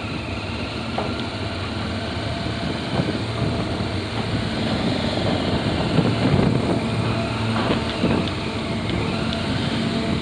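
BMW F650GS motorcycle engine running at low speed, with wind noise on the microphone and a few short knocks.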